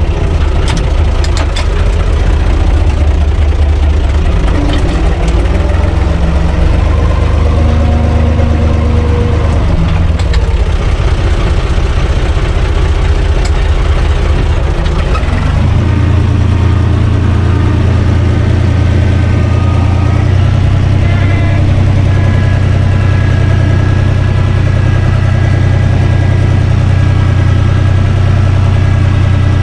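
Universal U445 tractor's four-cylinder diesel engine running loudly, heard from inside the cab. About halfway through its sound shifts and settles into a steady, even run.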